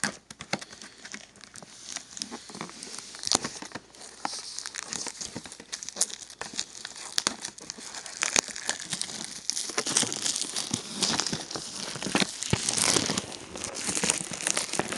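Plastic packaging on a boxed Blu-ray/DVD set crinkling and tearing as it is handled and pulled open by hand, with many small crackles, getting busier and louder about halfway through.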